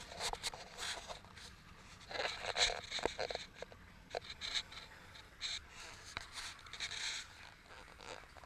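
Faint, intermittent scraping and rustling with a few light clicks, heaviest about two to three seconds in and again near the end.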